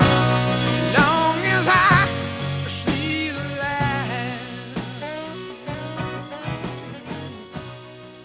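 Music fading out: a band plays under a wavering melody line, growing steadily quieter.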